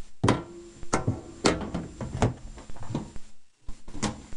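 Side panel of a computer case being handled and set against the case: a series of irregular knocks and clatters, with a short ring after each.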